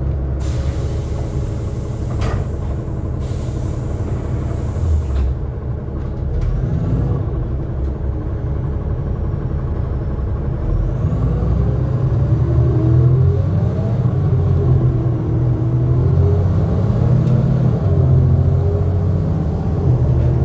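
Inside a NefAZ 5299 city bus: steady engine and road rumble, with a long hiss of released compressed air from the air brakes in the first five seconds. After that the engine note rises and falls and grows louder as the bus drives on.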